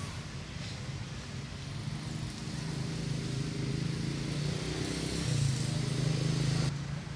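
A motor vehicle engine running steadily with a low drone. It grows louder over a few seconds, then drops back shortly before the end.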